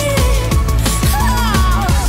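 Background music: a fast electronic drum and bass track with a steady beat, deep bass and a wavering melodic line above.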